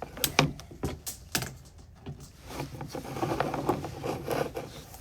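Scattered sharp clicks, then a steady rubbing and scraping from about halfway in, as an inspection camera's cable is worked through a PVC dryer vent pipe clogged with lint.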